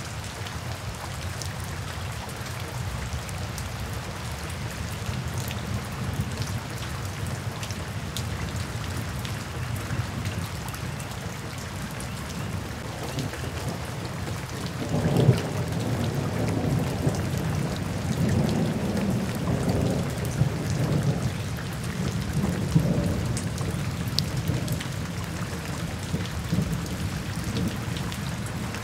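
Steady rain falling in a forest. From about halfway through, a low rumble swells in and out beneath it, with a sharp peak as it begins.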